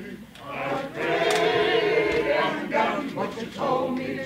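Mixed choir of men's and women's voices singing a cappella, with a short pause for breath just after the start before the next phrase.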